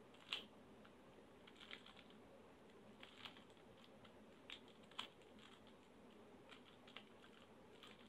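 Faint plastic clicks of a 3x3 Rubik's cube's layers being turned by hand, about half a dozen scattered clicks as the M2-method parity algorithm (D' L2 D) M2 (D' L2 D) is performed.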